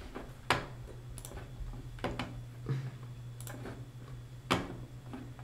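Computer mouse clicking: about six short sharp clicks at irregular intervals, over a low steady hum.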